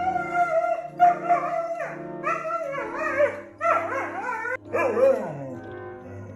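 A dog whining and yipping in about five short cries that bend up and down in pitch, over background music with steady held notes.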